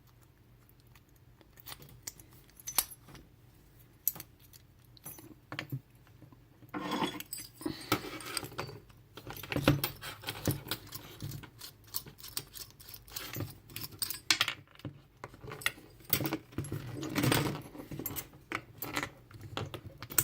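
Metallic clicking and rattling of a Cisa padlock being locked and worked on by hand: a few scattered clicks at first, then busier clatter from about seven seconds in.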